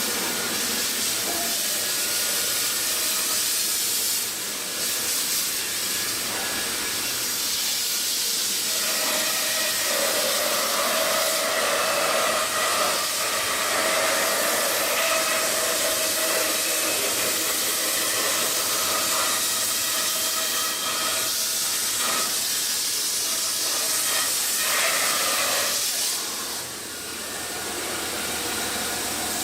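CNC foam-cutting router running: a steady hiss with a few steady whining tones, dipping briefly near the end.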